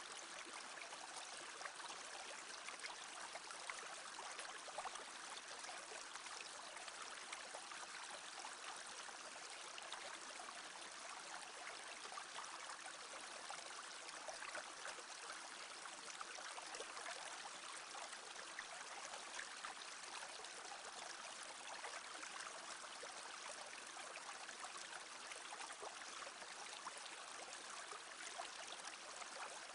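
A small brook babbling steadily over stones, a continuous even trickle and splash of shallow running water.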